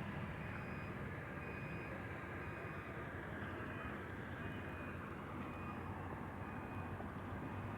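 Steady background rumble and hiss with a low hum, and faint short high tones repeating about once a second.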